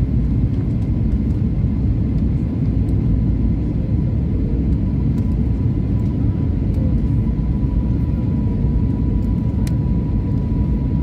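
Steady cabin noise inside an Airbus A320neo airliner on approach: a continuous low rumble of engines and airflow, with a faint steady tone above it and a small click about ten seconds in.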